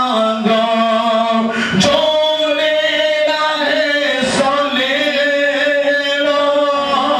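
A young man singing into a handheld microphone, in long held notes that waver and bend in pitch.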